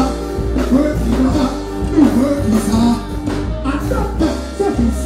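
Live dancehall music over a large outdoor sound system: a steady heavy bass line with a voice singing over it.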